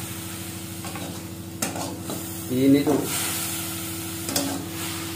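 A steel spatula stirs and scrapes ground onion-garlic masala paste frying in a metal kadai, with sizzling and a few sharp clicks of the spatula against the pan. A steady low hum runs underneath.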